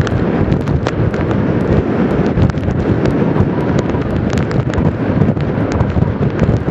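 Strong gusting wind buffeting the microphone, a dense low rumble shot through with many crackling pops, over the surf of storm waves on Lake Superior.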